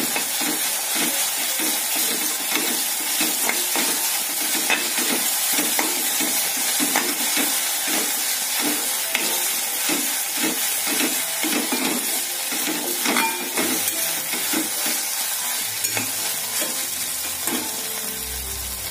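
Okra frying in oil in a kadai with a crushed peanut, garlic and green-chilli masala, sizzling steadily while a spoon stirs it in repeated strokes. The stirring eases off near the end.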